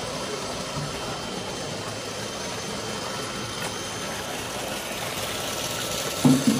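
Steady rushing noise of a tilapia tank's water system: water churning and splashing into the tanks, with a machine-like hum underneath. A short low thump about six seconds in.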